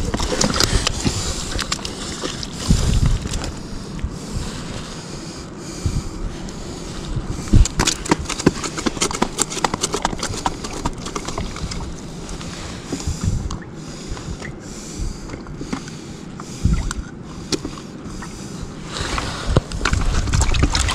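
Steady wash of wind and sea on the rocks, with frequent close clicks, rustles and a few thumps from hands handling fishing tackle.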